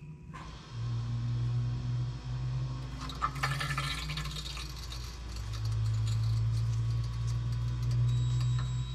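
The electric accumulator pump motor of a Toyota/Lexus hydraulic brake booster (an SC430 brake master cylinder unit) runs with a steady hum. It is pressurising the system to push fluid out of the open rear brake bleeder, and the hum grows louder about five and a half seconds in. A short burst of crackling noise comes about three seconds in.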